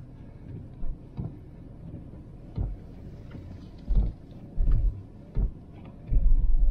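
Toyota 4Runner's V6 idling, heard from inside the cab as a steady low hum, with a series of dull low thumps about every second in the latter half.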